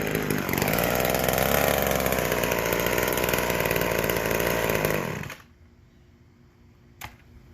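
McCulloch Mini Mac 120 two-stroke chainsaw running at high revs, its pitch dipping briefly near the start, then shut off about five seconds in. A single click follows near the end.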